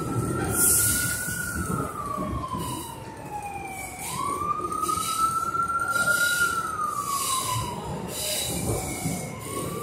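R62A subway car running along the track with a steady low rumble. Over it, a high wailing tone slowly rises and falls, twice over, dropping sharply and rising again about four seconds in.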